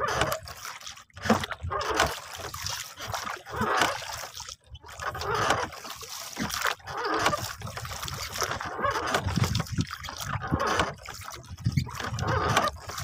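Sea water splashing and sloshing irregularly against the hull of a small wooden fishing boat as a longline is set. A small splash rises where a baited hook drops into the water.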